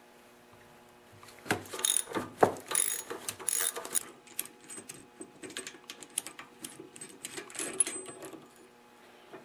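Ratchet with a 9/16 socket working the pulley bolt off a Tecumseh engine's crankshaft. About a second and a half in come sharp metal knocks and clanks of the tools on the shaft, the loudest about two and a half seconds in. Then rapid ratchet clicking goes on as the bolt is turned out.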